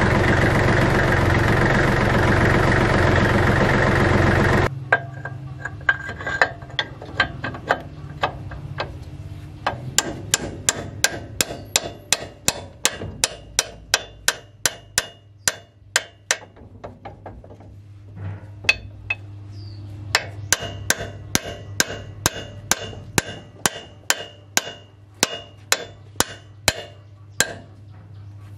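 An engine runs loudly, then stops abruptly about five seconds in. A steady run of hammer blows on metal follows, about three a second, each with a short ringing tone, with a brief pause part way through.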